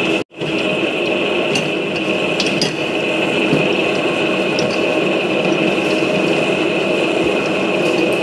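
Large commercial mixer running steadily, its motor and gear drive turning a beater through cookie batter in a steel bowl, with a constant high whine over a lower hum. The sound breaks off for an instant just after the start.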